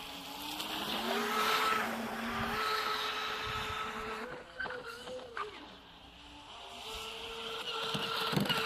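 Electric motor of a V2 Streamline thrasher RC boat, running on a 6S LiPo, whining at speed across the water. The whine rises in pitch in the first second and then holds steady. It wavers, fades briefly about six seconds in, then swells again near the end.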